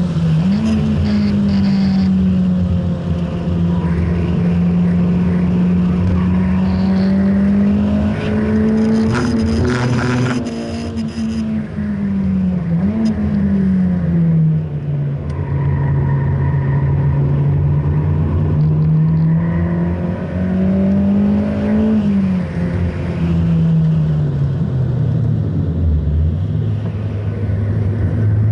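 A Honda Integra DC5's four-cylinder engine running hard at high revs, heard from inside the cabin on track. The engine note holds steady on the straights, dips and climbs several times with gear changes and lifts, and falls steeply under braking near the end before picking up again.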